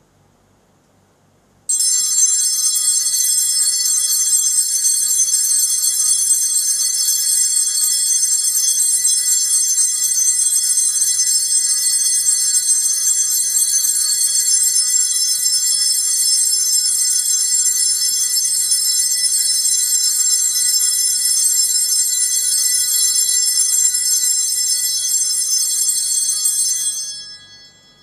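Altar bells rung without a break during the Benediction blessing with the monstrance, marking the moment the Blessed Sacrament is raised over the people. It is a continuous high ringing that starts suddenly about two seconds in, holds steady and dies away just before the end.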